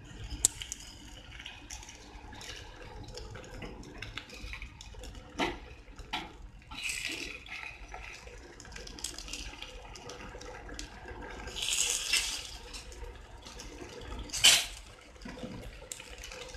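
Batter poured into the hot oiled wells of a paniyaram pan, sizzling in bursts as each well fills. A few sharp clicks come in between, the loudest near the end.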